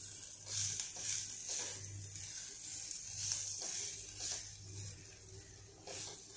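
A spatula stirring and scraping a coriander, peanut and coconut filling in a non-stick kadhai, with repeated strokes over a light sizzle of the frying mix.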